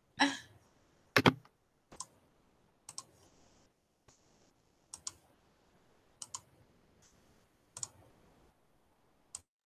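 Clicking at a computer: a loud pair of sharp clicks about a second in, then about six fainter clicks, mostly in pairs, every second or two, with a brief rustle at the very start.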